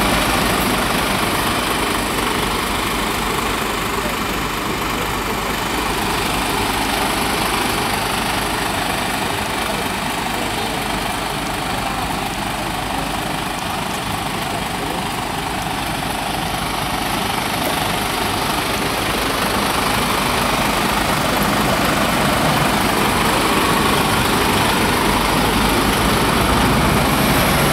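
Mercedes-Benz Actros 1845 truck's diesel engine idling steadily.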